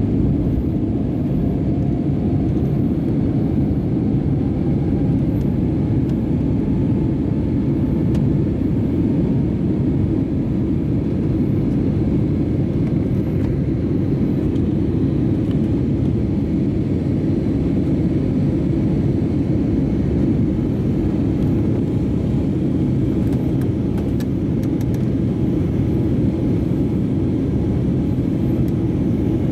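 Steady, loud low drone inside the passenger cabin of an Airbus A320neo during the climb after takeoff: engine and airflow noise.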